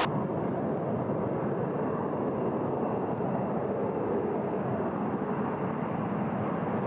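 A Saab JAS 39 Gripen's single jet engine at takeoff power during the takeoff roll. Heard from a distance, it is a steady rumble with a faint hiss above it.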